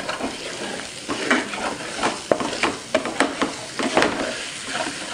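Spice masala frying in hot oil in a pan, sizzling steadily, with a spatula stirring and scraping against the pan in irregular strokes.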